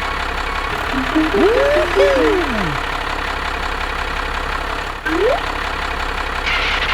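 A vehicle engine running steadily. A few short whistle-like tones rise and fall over it, one pair about a second and a half in and one more rising near the end.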